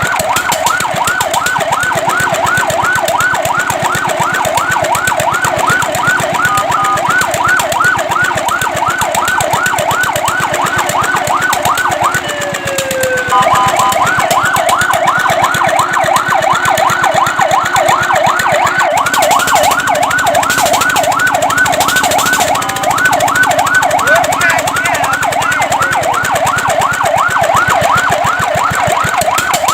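Fire truck's electronic siren sounding a fast yelp: a rapid rising-and-falling wail repeating several times a second. About twelve seconds in it breaks off briefly with a falling tone, then the yelp starts again.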